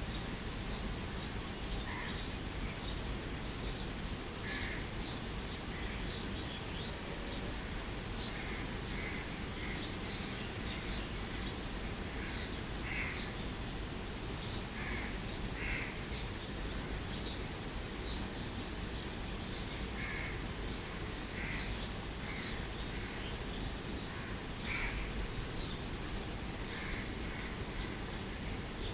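Birds calling, short calls one after another about once or twice a second, over a steady low background noise.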